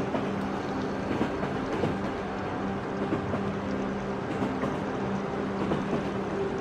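Steady drone of a few held low tones over an even hiss.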